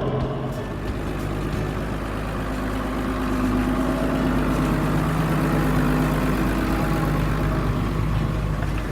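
Case MXM155 tractor engine running steadily while ploughing, its pitch and loudness rising a little about three seconds in.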